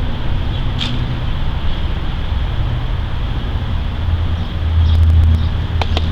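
Steady low outdoor rumble that swells about five seconds in, with a few sharp clicks near the end.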